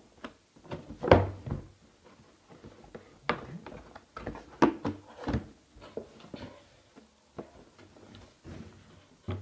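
Cardboard carton of coffee capsules being handled and opened by hand: irregular knocks and thumps against the table with cardboard flaps being pulled apart, the loudest thump about a second in.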